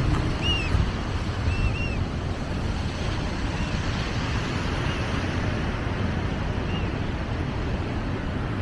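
Wind rumbling on the microphone over the wash of surf at the shore. A bird gives short arched chirps several times in the first two seconds, then fainter and sparser.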